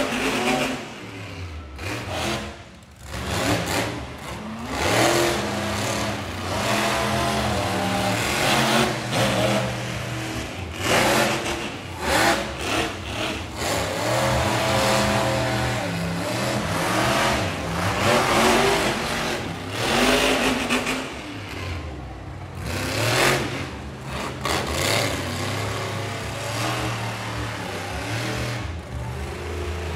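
Monster truck engines revving hard in repeated bursts, pitch rising and falling as the trucks power across a dirt track.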